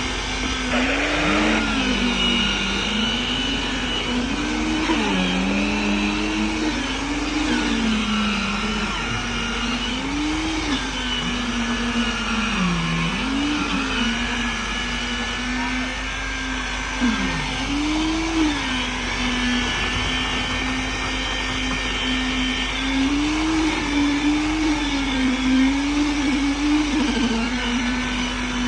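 Concrete-pouring machinery running: a motor or engine holding a steady pitch that repeatedly sags and climbs back as its load changes.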